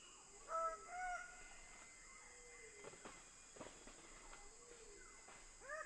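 Greater bird-of-paradise giving two short, harsh, pitched calls about half a second and a second in. Fainter downward-sliding calls follow, and another call begins near the end.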